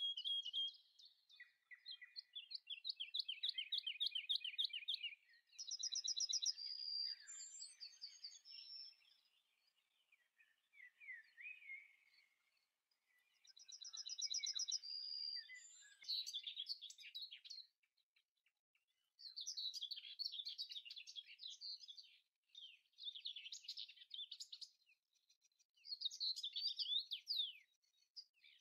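Songbirds chirping and singing in phrases of a few seconds, several of them rapid trills, with short pauses between phrases.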